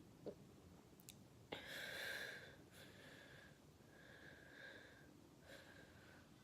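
Near silence: faint breathing and sniffing close to the microphone, with a small click just after the start and a louder breath about a second and a half in.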